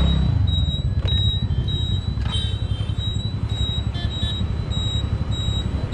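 A road vehicle on the move: a steady, uneven low rumble of engine and road noise.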